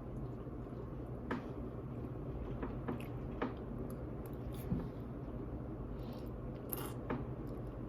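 Someone eating microwaved noodles, with chewing and wet mouth sounds and several short clicks, over a steady low hum.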